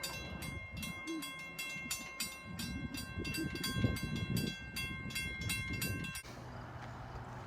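Mechanical railroad crossing bells ringing with rapid, evenly repeated strikes that each leave a clear ringing tone, over a low rumble. The ringing cuts off abruptly about six seconds in.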